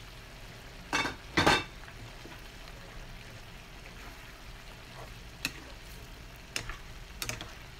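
Pan of pork and bamboo-shoot stir-fry simmering with a steady low sizzle. Two loud clanks of metal on the pan come about a second in, and a few lighter scrapes and taps follow as the food is stirred.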